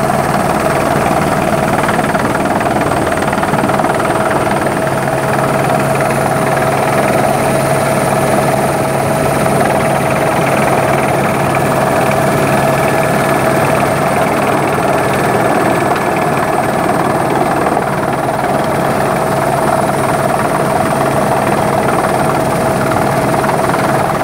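Helicopter engine and rotor noise heard on board in flight, a steady, unbroken drone.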